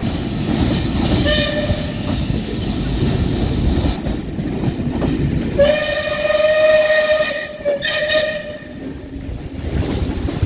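A British train's horn sounding a single-pitched note three times: a short blast about a second in, a longer blast lasting about two seconds past the middle, then a brief one. Under the horn runs the steady rumble of the train passing.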